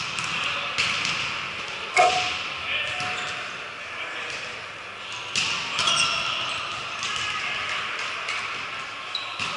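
Several sharp smacks of a volleyball being played, the loudest about two seconds in, among players' and spectators' voices echoing in a gym hall.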